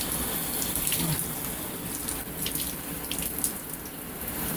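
Shower water running steadily over a dirty vacuum cleaner filter sponge as it is rinsed.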